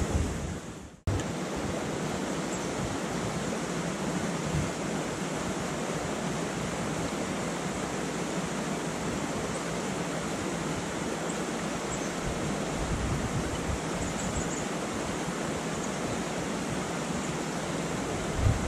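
Steady rush of river rapids. In the first second a low rumble of wind on the microphone fades out and the sound drops out briefly before the even rush comes in.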